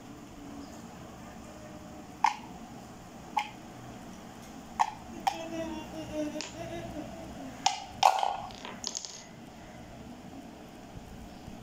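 Wooden balls set one by one into the holes of a wooden pound-a-ball toy, four sharp clicks, then a wooden mallet knocking twice about eight seconds in, driving a ball through the box, with a few small ticks after.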